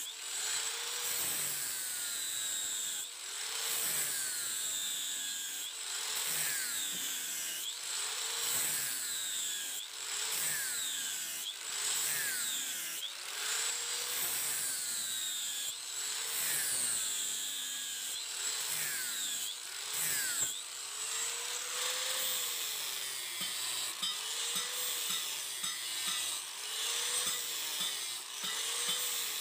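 Hand tool rasping in steady back-and-forth strokes on the workpiece, about one stroke every one and a half seconds, each stroke with a rising and falling scrape.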